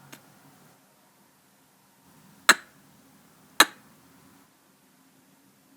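Two sharp, short clicks about a second apart, made with the mouth as sound effects, over a faint low hum.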